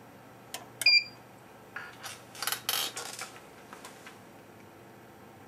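Two sharp clicks and a brief high electronic beep about a second in, then a burst of light clattering and clinking lasting about a second and a half.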